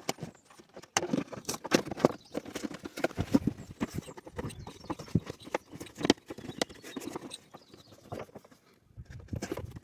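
Irregular plastic knocks and clicks from fitting a new engine air filter into the airbox and handling the plastic housing.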